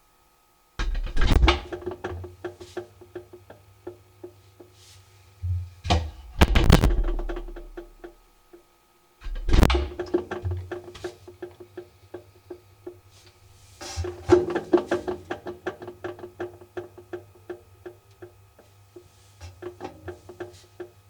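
Samsung Ecobubble WF1804WPU washing machine drum knocking as it turns: a fast, even run of light knocks with a few heavy thumps, over a steady motor hum. The owner suspects broken shock absorbers or drum bearings.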